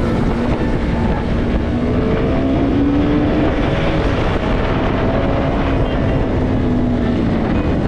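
KTM Duke 250's single-cylinder engine running steadily while the motorcycle rides along, with wind rushing over the microphone.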